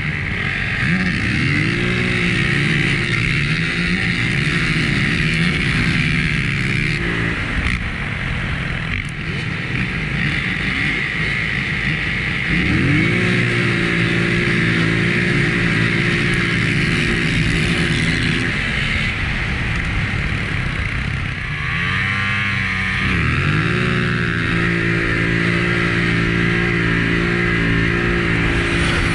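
Polaris Sportsman 1000 ATV's twin-cylinder engine launching at full throttle three times: each time the revs climb quickly, hold steady for about five seconds, then drop away.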